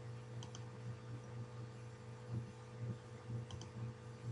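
Low steady hum that swells and fades a little, with two faint computer mouse clicks, one about half a second in and one near the end.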